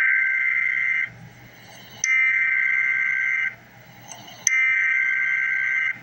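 Emergency Alert System SAME header: three bursts of harsh two-tone digital data, each about a second and a half long, spaced about a second apart. This is the coded header that opens an alert.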